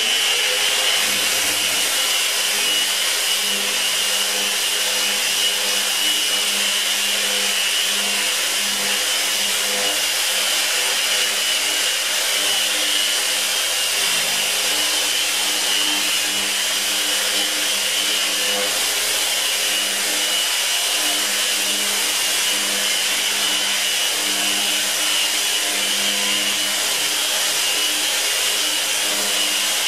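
Festool Rotex RO 150 sander running steadily in fine-sanding mode with a 120-grit disc, its pad worked over plaster patches on plasterboard, with a constant high whine. The Festool CT 36 dust extractor runs with it, drawing through the hose.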